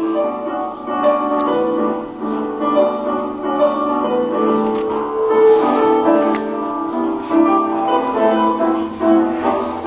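Jazzy piano music played over the automated public toilet's sound system, heard in the small tiled cubicle.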